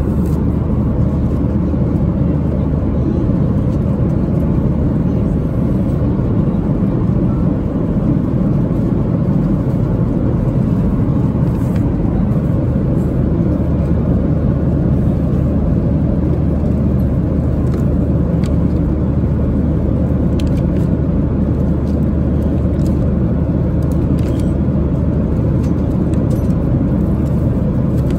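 Steady cabin noise inside a Boeing 737-800 airliner in flight, an even rumble with no change in level. Faint rustles of magazine pages being handled sit on top of it.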